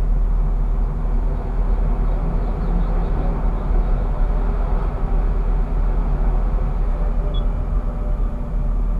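Steady low rumble and hum inside a standing tram's driver's cab, with another tram passing on the adjacent track.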